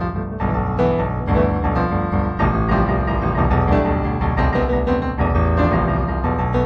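Improvised piano music, notes struck in a steady flowing stream.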